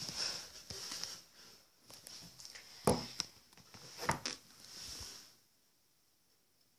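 Rustling and scuffling with a few sharp knocks, then near silence for the last second or so.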